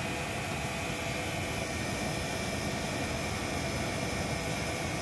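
Homemade coal forge burning under a brake-rotor lid: a steady rushing noise with a faint steady whine running through it.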